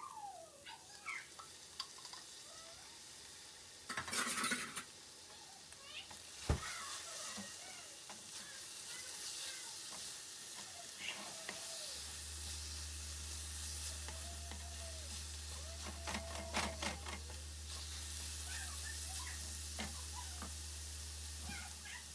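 Kitchen handling sounds, with a brief rustle about four seconds in and a sharp knock a couple of seconds later, while a cat meows softly several times. A low steady hum starts about halfway through.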